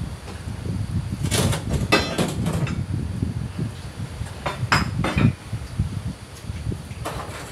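Clattering and knocking of hard objects being handled, in three short clusters (about a second in, around five seconds in, and near the end), over a steady low rumble.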